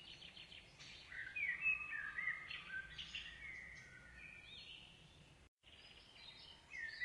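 Songbirds singing: overlapping chirps and short whistled notes, some sliding up or down in pitch, over a faint steady hiss. There is a brief cut to silence about five and a half seconds in.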